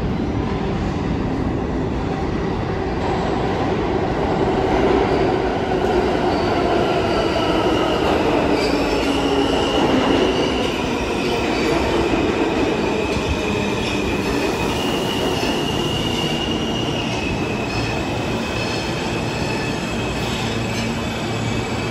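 New York City subway train moving along the track, with a steady rumble and the steel wheels squealing against the rails in several high, held tones that shift in pitch.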